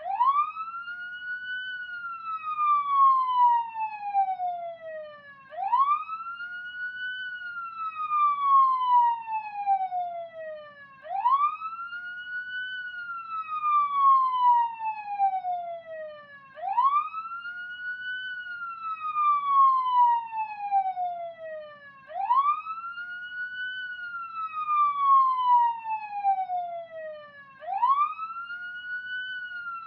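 Police car siren in a slow wail, heard from inside the car: each cycle sweeps quickly up, then glides slowly down, repeating about every five and a half seconds. A faint low rumble runs beneath it.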